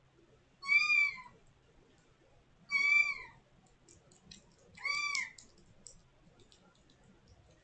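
Kitten mewing loudly three times, about two seconds apart, each call rising then falling in pitch, with a few light clicks around the third call.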